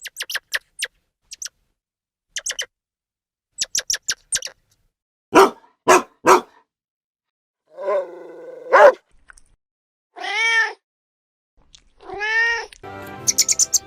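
Domestic cat meowing: two drawn-out meows in the second half, each rising then falling in pitch, after a scatter of short clicks and brief cries.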